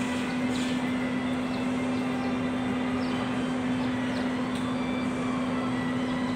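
Three-cylinder Mitsubishi KE75 engine running steadily with its valve cover off, rocker arms swinging; a constant hum with faint light ticks over it.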